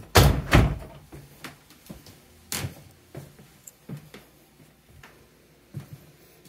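An interior door being opened, with two sharp knocks about half a second apart near the start, then scattered soft footsteps on a wooden floor.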